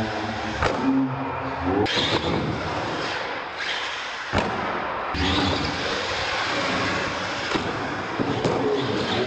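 Radio-controlled monster truck running over wooden ramps on a concrete floor: motor and tyre noise, broken by a few sharp knocks as it hits and lands off the ramps. The sharpest knock comes about four seconds in.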